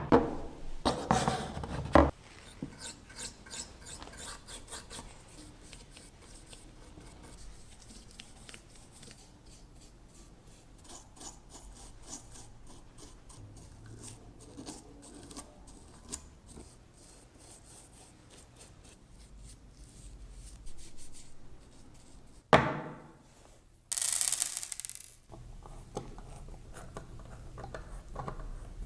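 Hand tools working wood: many small, quick scraping and rubbing strokes, like filing or sanding a small wooden part. A sharp knock comes about 22 seconds in, and a brief loud hiss a second or so later.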